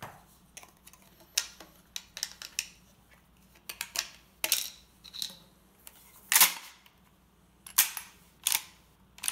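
Mossberg 500 12-gauge pump-action shotgun handled by hand: a shell put in through the ejection port and the action worked, giving a string of sharp metallic clicks and clacks. The loudest is a longer clack about six and a half seconds in.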